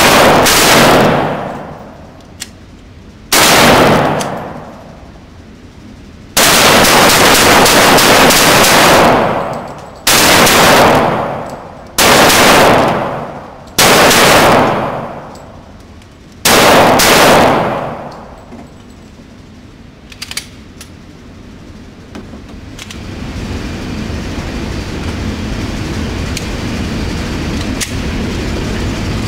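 Glock 23 .40 S&W pistol fired in single shots, six in all, one every two to three seconds, each shot overloading the microphone and ringing out for a second or more. After the last shot comes a pause with a couple of faint clicks.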